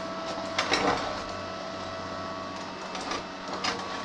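Light metal clunks and clicks from the welded steel steering and ski-suspension linkage of a homemade snowmobile as the handlebar is moved by hand: a cluster about a second in and a few more near the end. Under them runs a steady high-pitched electrical hum.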